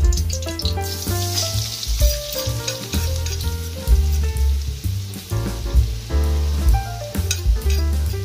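Spice paste sizzling in hot oil in a wok, under background music with a heavy bass line. The sizzle is strongest in the first half.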